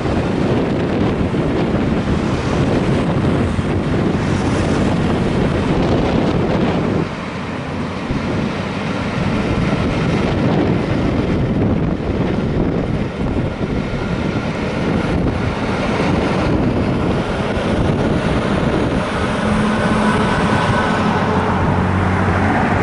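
A long train of passenger coaches passing close by, its wheels rumbling on the rails, with wind buffeting the microphone. Near the end a steady hum joins in as the tail of the train goes by.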